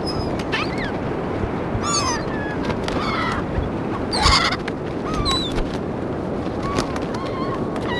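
Gulls calling around a feeding: a series of short, squawking cries with sliding pitch, some overlapping, the loudest cluster about four seconds in, over a steady rushing background noise.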